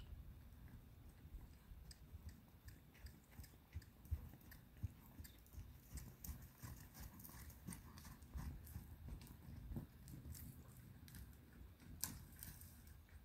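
Faint, irregular crunching and clicking of a horse's hooves on soft arena dirt at a walk and jog, over a low rumble.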